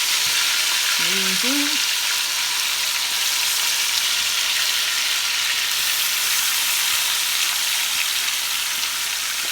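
Pieces of chicken back frying in hot rendered chicken fat in a pot: a steady sizzle.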